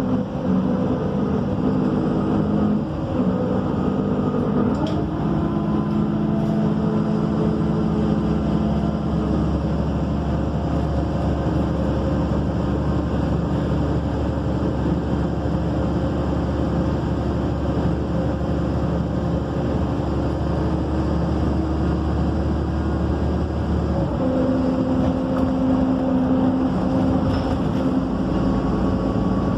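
MAN Lion's City city bus engine running, heard from inside the bus while it drives. About seven seconds in, a low drone cuts in, and it drops out abruptly about five seconds before the end. The rider notices this kind of engine sound coming and going on this bus.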